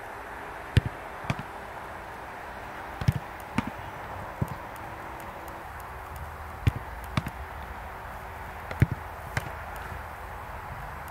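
A football being kicked and caught in goalkeeper training: about nine sharp thuds at irregular intervals, some in quick pairs, over a steady background hiss.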